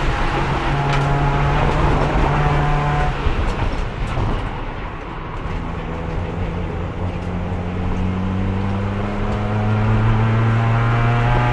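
Race car engine heard from inside the car, held in fourth gear with no gear changes: steady at first, easing off briefly about four seconds in, then pulling back up with a slow, steady rise in pitch. The broken transmission has lost third gear, so the car stays in fourth throughout.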